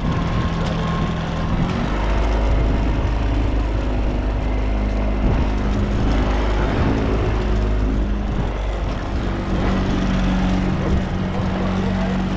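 Fishing boat's engine running steadily, a low drone with a hum of stacked tones; about two seconds in the drone grows deeper and stronger.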